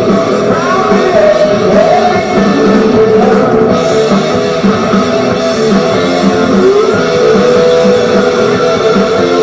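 Rock music led by guitar, playing steadily.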